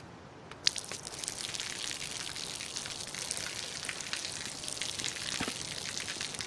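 Water pouring down and splashing on wet pavement: a steady hiss full of scattered drip and splatter ticks. It comes in sharply under a second in.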